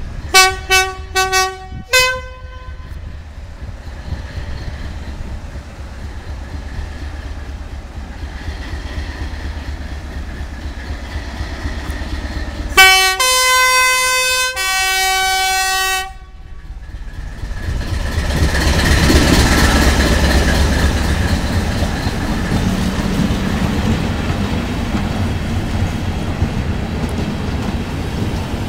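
Two-tone train horn: about five short toots in the first two seconds, then some ten seconds later a longer blast of two notes, the higher first and then the lower. After it the rumble of the train passing swells up and carries on to the end.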